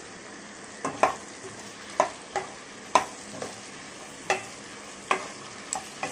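Onions, capsicum and tomato frying in oil in a kadai with a steady sizzle, while a wooden spoon stirs them. From about a second in, the spoon knocks against the pan roughly once a second, sometimes twice in quick succession.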